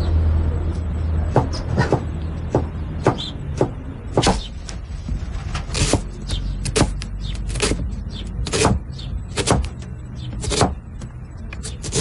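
Kitchen knife chopping onion on a wooden cutting board: irregular sharp chops, roughly one or two a second, over a low steady hum.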